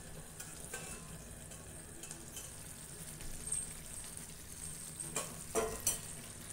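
Goat lung gravy sizzling steadily in an uncovered kadai over a medium flame, the masala still wet and cooking. A few light knocks come near the end.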